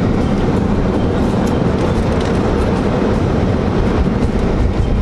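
Steady road and wind noise inside a moving car's cabin: an even low rumble with a hiss above it.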